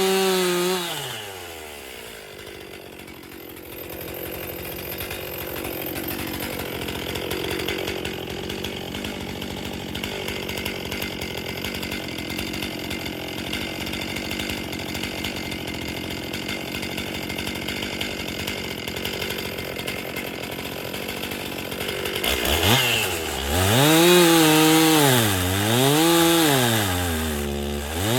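Stihl chainsaw engine dropping from full throttle to idle about a second in and idling for around twenty seconds. It is then revved again, its pitch swinging up and down several times before holding high near the end.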